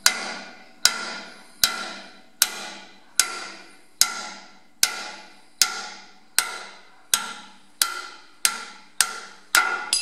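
A hammer striking a steel drift over and over, a little more than one blow a second, each blow ringing briefly, as the worn steel-backed brass bush is driven out of a John Deere 2030's front axle pivot housing. The last few blows come closer together.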